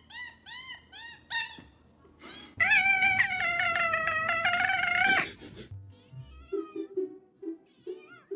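A cat meowing: a quick run of short rising-and-falling meows, then about two and a half seconds in one long, loud, wavering yowl lasting nearly three seconds.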